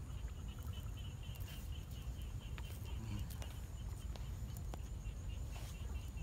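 A small animal calling in a rapid, even, high chirp of about four pulses a second, over a low rumble of wind or handling noise, with a few sharp clicks.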